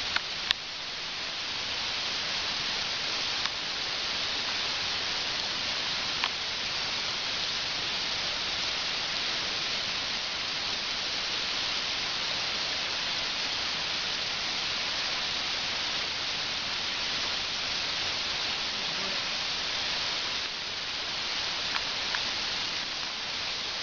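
Steady hiss of falling water from a waterfall, with a few faint clicks.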